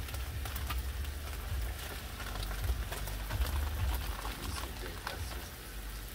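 Bratwurst, peppers and onions sizzling on a Blackstone propane flat-top griddle, a steady crackle of small pops over a low rumble.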